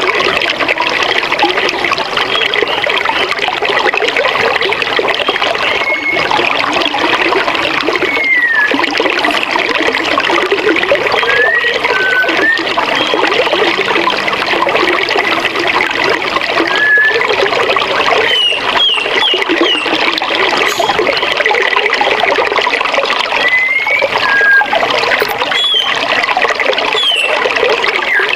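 Forest river water rushing steadily, with short bird chirps and whistles scattered over it, including a quick run of several notes a little past halfway.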